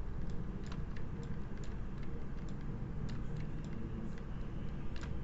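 Scattered light clicks of computer keys, a few a second at uneven intervals, over a steady low hum.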